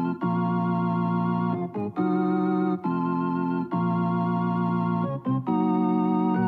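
Music: sustained organ-like keyboard chords with no voice, changing to a new chord every second or so.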